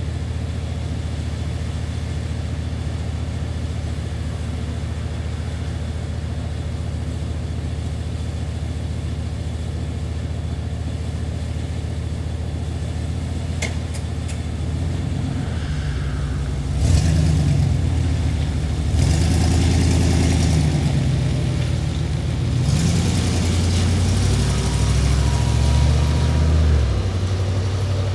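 Road traffic with a steady low hum. About halfway through, vehicles pass close by, their engine notes rising and falling as they accelerate and shift, before the steady hum returns near the end.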